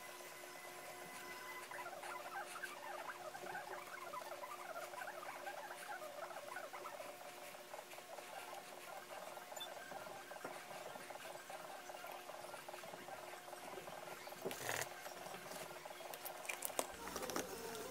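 Wool dauber rubbing black leather dye over a leather knife sheath: faint, squeaky scraping and patting, busiest in the first half. A single light knock comes about three-quarters of the way through.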